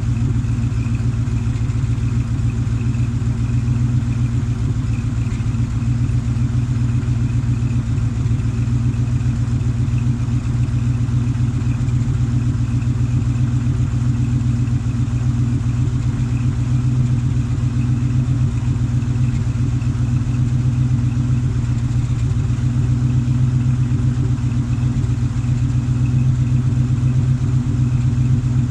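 1979 Dodge D100's 318 cubic-inch small-block V8 idling steadily after a cold start, its low exhaust note even and unchanging.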